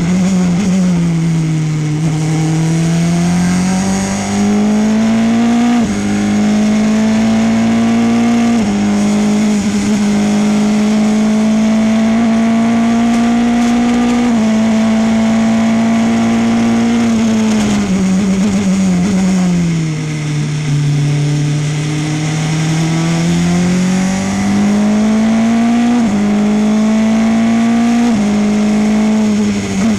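Formula Renault 2.0 race car's 2-litre four-cylinder engine heard from the cockpit, running hard and stepping up through sequential gear changes. About halfway through, the pitch falls as the car brakes and shifts down for a corner. It then revs back up, with quick upshifts near the end.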